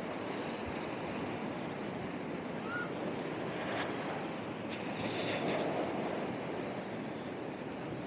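Small ocean waves breaking and washing up the sand, a steady rush that swells about four seconds in and again a second or so later, with wind on the microphone.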